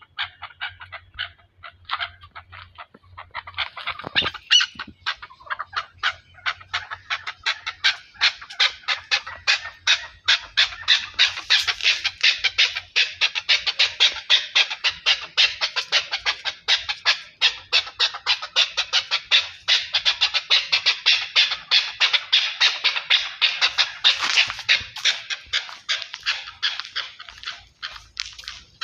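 Chukar partridge calling: a few scattered notes, then from a few seconds in a fast, even series of short clucking notes at about five a second that keeps going.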